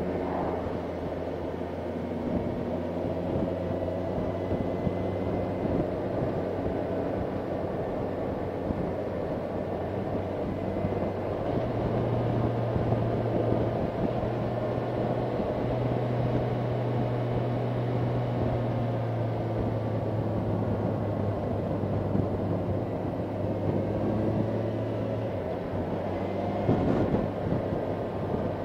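Motorcycle engine running at a steady road speed, with wind and road noise, heard from on the bike. The engine hum grows stronger about twelve seconds in and eases back a few seconds before the end.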